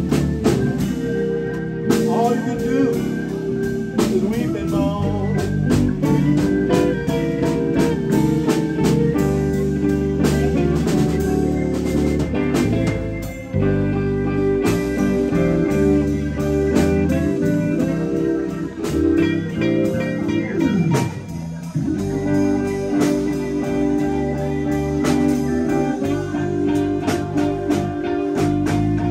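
Live blues band playing an instrumental stretch: electric guitars over bass guitar and drums, with bent and sliding guitar notes.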